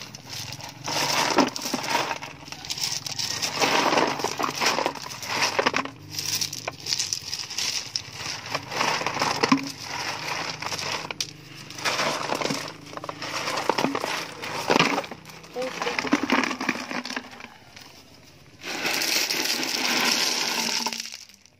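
River stones clattering as they are tipped out of a plastic tub onto a bed of other stones, in a series of irregular rattling pours, with one longer continuous pour about two seconds before the end.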